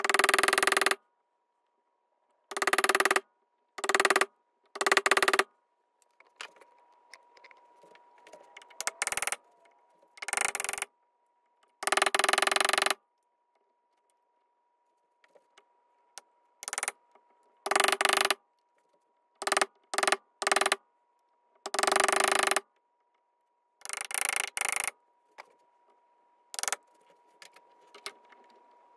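Wood chisel paring splintered wood from painted door trim by hand: about a dozen short scraping strokes, each under a second, with pauses between them.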